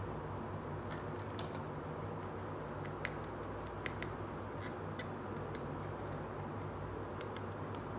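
Small hard plastic toy furniture being handled: scattered light clicks and taps as a miniature plastic armchair is turned in the fingers and set down, over a steady low hum.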